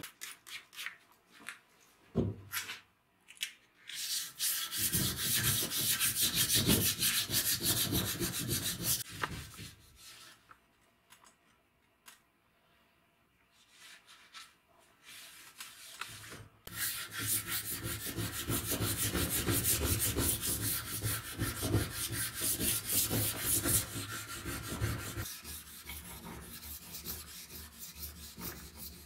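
A hand rubbing a rusty steel knife blade with a cloth in quick back-and-forth strokes, cleaning the metal. It comes in two long bouts with a quiet pause between them.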